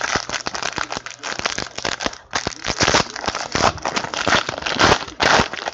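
Shiny trading-card pack wrapper crinkling and crackling as hands tear it open, with a dense run of sharp irregular crackles.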